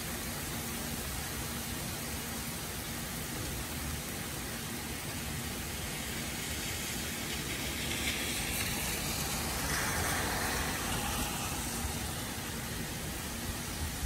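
Heavy rain falling steadily, an even hiss, swelling louder for a few seconds past the middle.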